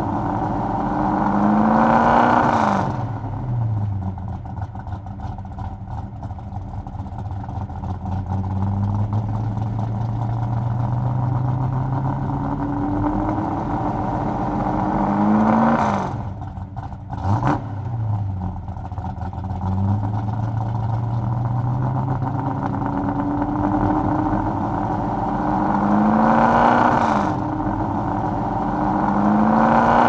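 Chevrolet Chevelle SS V8 engine accelerating hard. The revs climb and fall away about four times as it shifts, settling to a steady cruising note in between, with a brief dip and a sharp click about halfway through.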